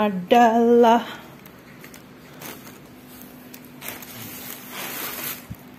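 Thin plastic carry bag (kresek) rustling and crinkling in several short bursts as it is handled, the longest near the end.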